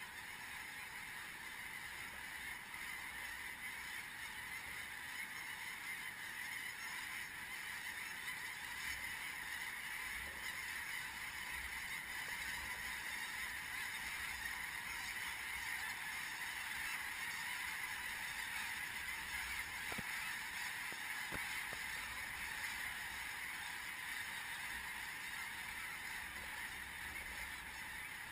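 A huge flock of snow geese calling overhead: a dense, unbroken din of high honking and yelping, growing a little louder through the middle.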